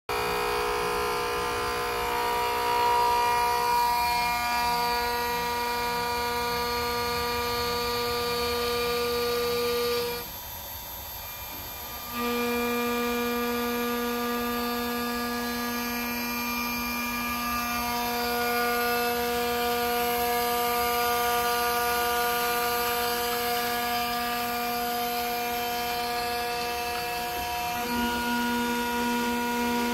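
Gantry CNC router on a test run: its motors whine in steady tones that shift pitch in steps as the machine changes moves. About ten seconds in it drops quieter for a couple of seconds, then picks up again.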